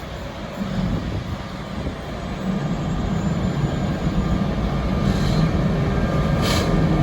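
Freight train rolling along the track: a low rumble of wagons, with a steady low hum that grows louder from about two and a half seconds in, and two short hisses near the end.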